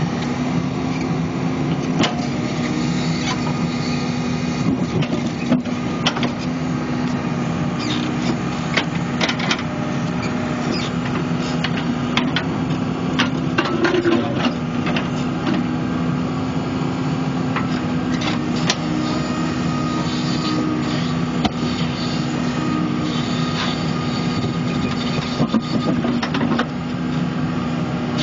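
New Holland Kobelco E80B midi excavator's diesel engine running steadily under working load as it digs. Scattered short clanks and knocks come from the bucket working in stony soil.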